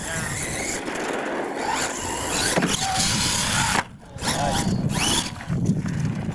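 R/C monster truck driving on dirt, its motor whining up and down in pitch with the throttle over the noise of the tyres and drivetrain. The sound breaks off briefly about four seconds in, then picks up again.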